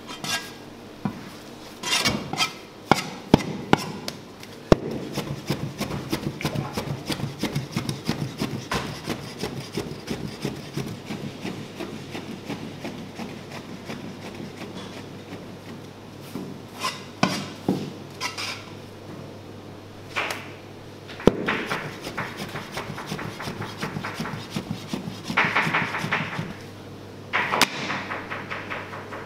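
Knife chopping rapidly on a wooden board, several strokes a second, with a few louder knocks and some clatter before and after.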